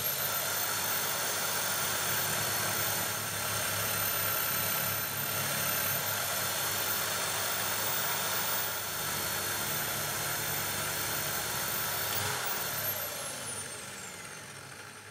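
Power tool spinning a Scotch-Brite abrasive wheel, running steadily with a high whine while black spray paint is scrubbed off an aluminium bicycle quill stem. About twelve seconds in it is switched off and the whine falls away as the wheel winds down.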